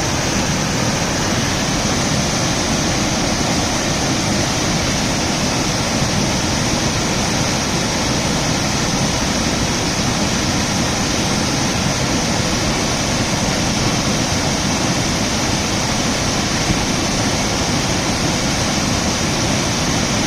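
Water rushing over a waterfall: a steady, loud, unbroken noise of falling water.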